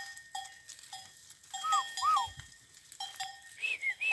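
A herd of goats on the move, with bells on the animals clanking irregularly and a few short rising-and-falling calls.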